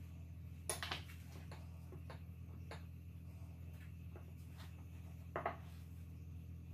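Light clicks and taps of a metal fork against a ceramic bowl: a quick cluster about a second in, faint ticks after it, and another cluster near the end. A steady low hum runs underneath.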